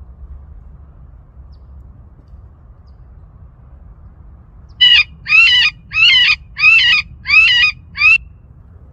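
Recording of a rabbit distress call: six loud, shrill squeals in quick succession, starting about five seconds in, each arching up and down in pitch.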